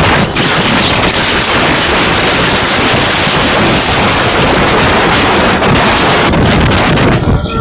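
Loud, steady rushing of wind buffeting the microphone, covering everything else.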